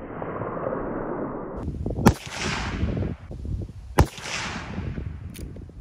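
Two shots from a Glenfield Model 30A (Marlin 336) lever-action .30-30 rifle, about two seconds apart, each a sharp crack followed by a rolling echo that fades over a second or so.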